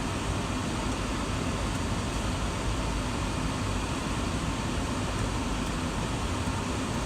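Climate-control blower of a third-generation Acura MDX running, a steady rush of air through the dashboard vents.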